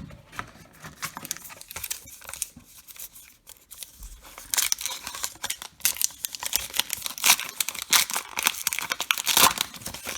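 A baseball card pack's wrapper being torn open and crinkled by hand, in light scattered crackles at first and then a dense stretch of crinkling from about halfway in.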